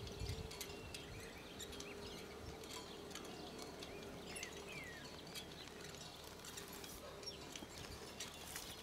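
Faint outdoor ambience with scattered short bird chirps and calls, over a faint steady hum.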